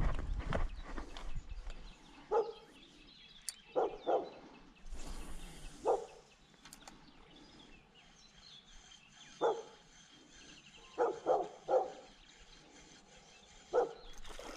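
A dog barking in short, separate barks, some single and some in quick runs of two or three, about nine in all, spaced unevenly.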